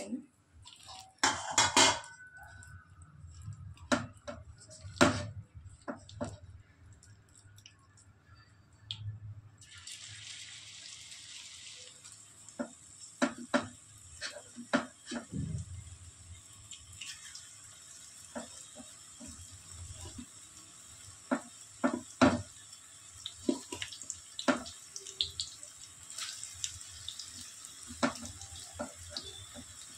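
Kitchen tap turned on about ten seconds in and left running with a steady hiss, while dishes and utensils clink and knock throughout.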